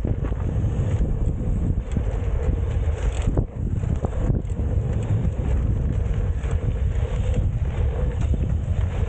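Wind rushing over the microphone of a BMX rider's helmet camera as he rides round a dirt BMX track, a steady low rumble. A couple of short knocks come from the bike about three and four seconds in.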